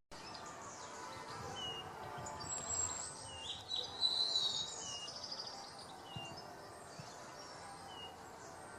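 Woodland birds calling: short high chirps repeating every second or so, with a burst of busier twittering song about three to four seconds in.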